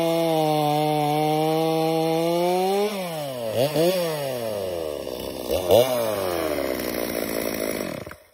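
Stihl MS250 45cc two-stroke chainsaw running at full throttle while cutting a log of rotten maple. About three seconds in the throttle is let off and the pitch falls, it is blipped twice, settles to idle, and the engine is switched off near the end.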